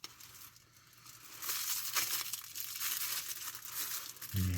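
Food packaging crinkling and rustling as it is handled, starting about a second and a half in.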